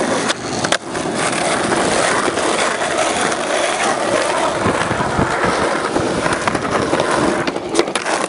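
Skateboard wheels rolling on rough street asphalt, a steady gritty roar. There is a sharp clack of the board about a second in and a quick cluster of clacks near the end as it rides onto a concrete bank.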